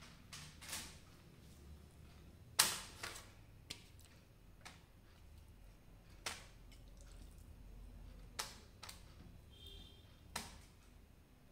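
A scattering of faint taps and knocks, about ten of them, with a sharper knock about two and a half seconds in. The sounds come from pieces of marinated chicken being laid one by one from a steel bowl onto baking paper in a Philips air fryer basket.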